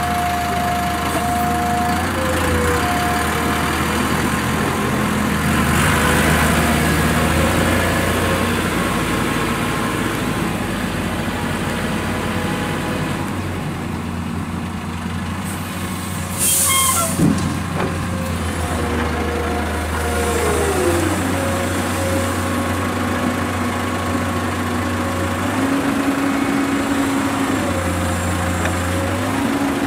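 Komatsu PC210 crawler excavator's diesel engine running under load, its hydraulic whine shifting in pitch as the arm digs, swings and dumps sand and stone into a small dump truck. There is a short, loud hiss about halfway through.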